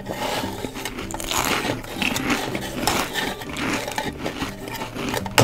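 Continuous crunching, munching chewing sounds as a toy T-rex is made to eat a plastic toy pizza slice.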